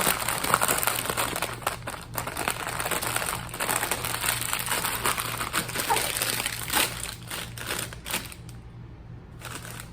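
Plastic snack bag crinkling and rustling as it is handled and opened, a dense crackle that eases off about eight seconds in.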